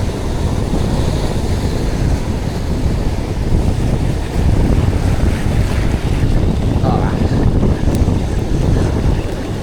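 Strong wind buffeting the microphone with a loud, steady low rumble, over the wash of surf breaking on the beach.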